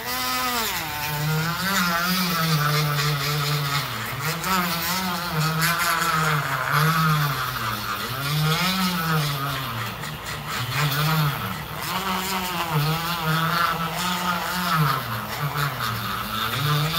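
Handheld rotary tool grinding the underside of a chromatic harmonica's metal slider with a small grinding wheel. The motor whines steadily, its pitch repeatedly dipping and recovering, with a hiss of grinding over it.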